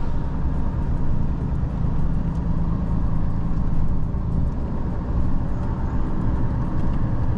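Truck's diesel engine and tyre noise heard inside the cab while driving at steady speed: an even, low drone.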